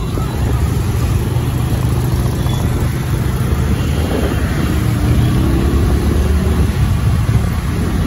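Riding noise from a two-wheeler moving through city traffic: a steady low engine rumble mixed with wind buffeting the microphone and the sound of surrounding traffic.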